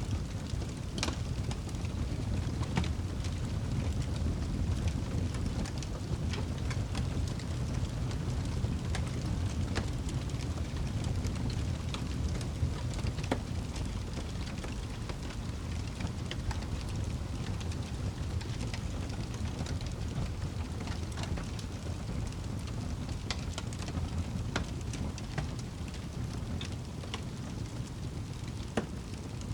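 Wood fire burning in a fireplace: a steady low rush of flame with scattered sharp crackles and pops at irregular intervals.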